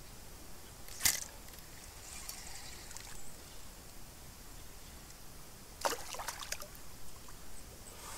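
Handling of a spinning rod and reel while a small fish is reeled in: two sharp clicks, about a second in and just before six seconds, with light rustling over faint outdoor quiet.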